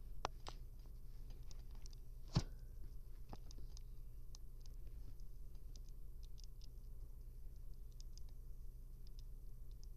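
Pet rodent nibbling a corn chip: scattered, faint crisp clicks of teeth on the chip, with one louder sharp click about two and a half seconds in, over a low steady hum.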